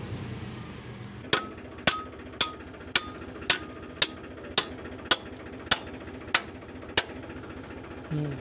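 A hammer striking the steel tailgate and latch of a tractor's sand trolley, a steady run of about eleven blows, roughly two a second, each with a short metallic ring.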